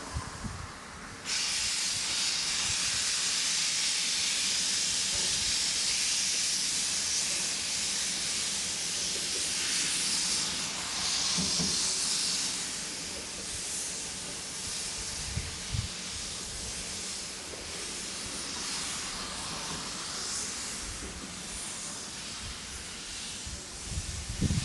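Steam locomotive venting steam: a loud hiss that starts suddenly about a second in and keeps going, easing somewhat about halfway through.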